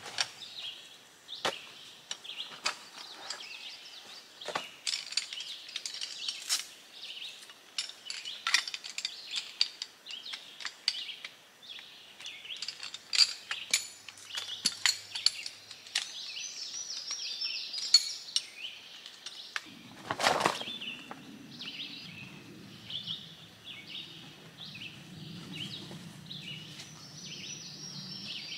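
Metal frame poles of a folding mini camp chair clicking and clinking as the chair is put together, with a louder scrape about two-thirds through followed by steady rustling. Birds chirp steadily in the background.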